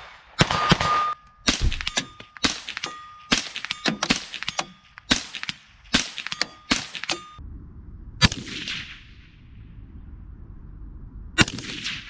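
Rapid semi-automatic shots from a .22 Magnum (22 WMR) rimfire AR-15 rifle, about two a second for the first seven seconds, with a metallic ringing ding after several of them. Then two single shots about three seconds apart, each with a long echo, over a low rumble.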